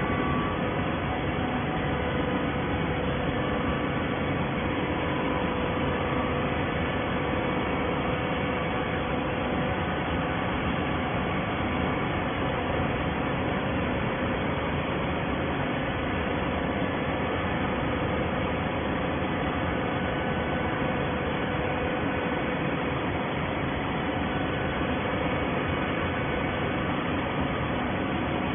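Large horizontal hydraulic baler running: a steady mechanical hum with a few held tones, without distinct strokes or knocks.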